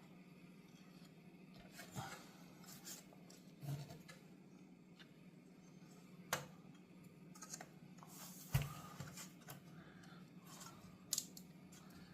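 Scattered light clicks, taps and scrapes of a car radio display's plastic housing and clips being handled and pried apart, about five sharp clicks spread over the stretch, over a faint steady hum.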